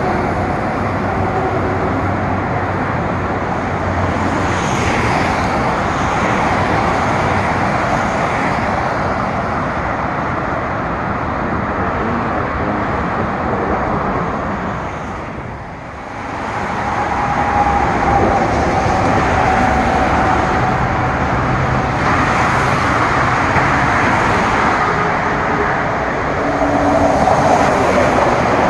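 BART rapid-transit train moving through a station: loud, steady wheel-and-rail noise that dips briefly about halfway and then rises again, with a thin whine standing out in the second half.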